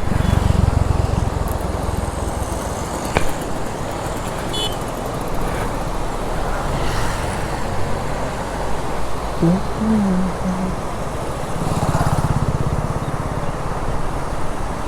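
Motorcycle running on the road, with steady wind and road noise; the engine's low note swells near the start and again about twelve seconds in.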